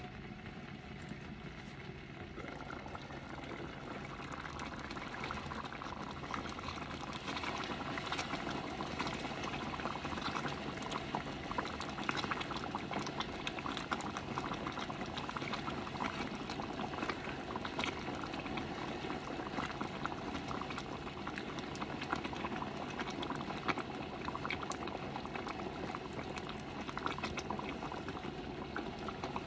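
A pot of tomato broth with pasta shells bubbling at a boil, a dense crackle of popping bubbles that grows louder over the first several seconds and then keeps on steadily.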